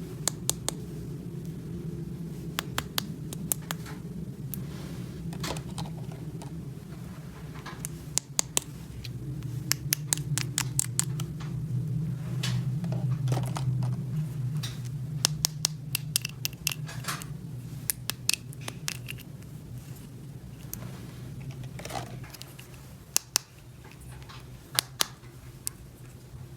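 Small plastic toy pieces clicking and tapping as they are handled and set down, in irregular clusters over a steady low hum.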